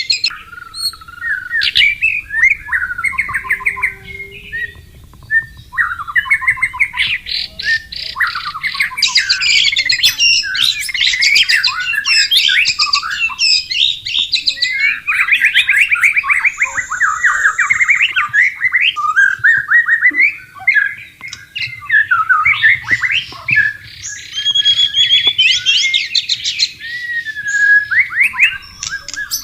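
White-rumped shama singing a long run of rapid, varied whistled and chattering phrases, broken by a few short pauses, over a faint low rush of flowing water.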